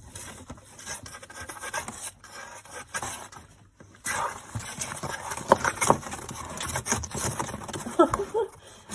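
Scratching, rubbing and rustling with many small clicks and knocks, busier in the second half, with a couple of short squeaky sounds near the middle and near the end.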